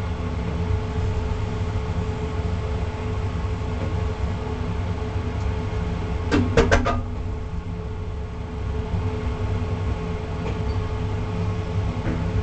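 Doorless elevator car travelling through its shaft: a steady low rumble with a constant hum. About halfway through, as the car passes a landing door, there is a brief clatter of three or four clicks.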